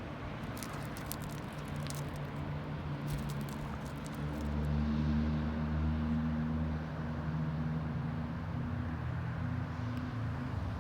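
A low, steady engine hum, like a vehicle running, growing louder about four seconds in, with a few light clicks in the first few seconds.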